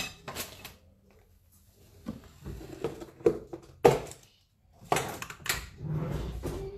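Scattered knocks, clicks and rustles of food and packaging being handled on a kitchen counter, with one sharper knock a little under four seconds in.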